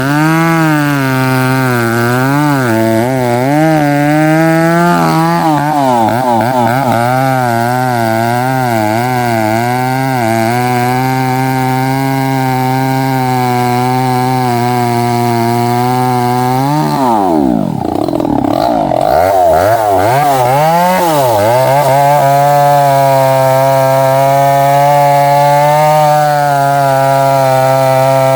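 Gasoline chainsaw cutting through a thick tree trunk, its engine pitch wavering as the chain takes and eases load. About seventeen seconds in the revs drop sharply and climb back, then it runs steady at high revs.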